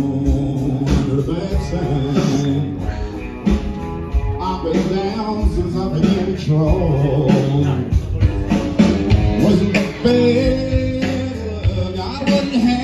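Live band playing a blues number, with electric guitar, drums and some singing, during a soundcheck.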